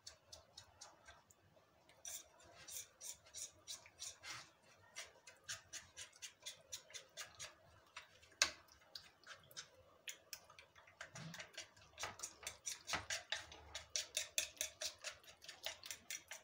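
A metal fork beating egg, cornflour and milk in a bowl, its tines clicking against the bowl in a quick rhythm that gets faster in the last few seconds.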